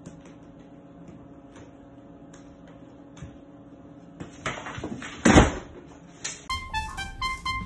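A cat scrabbling inside a burlap coffee sack hung on a wall: faint scratches and rustles over a steady low hum. About five seconds in comes a louder rustling thump as the sack comes down with the cat. Piano music starts near the end.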